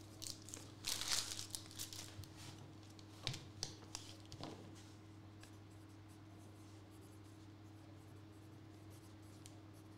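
Faint rustling and handling of paper and card packs on a tabletop, a few soft scrapes and taps in the first half, then only a steady low electrical hum.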